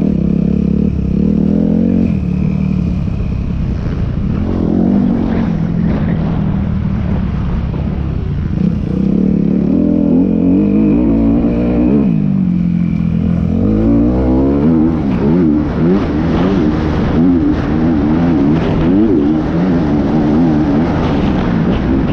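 Motorcycle engine running under way, its pitch climbing and dropping several times with the throttle, and wavering up and down more often in the second half.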